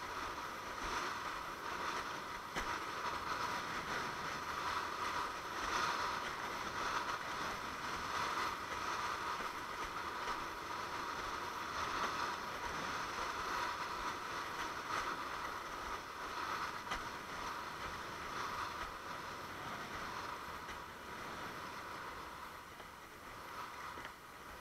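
Steady rushing hiss of water streaming past a longboard windsurf board as it sails, with wind mixed in, easing off slightly near the end.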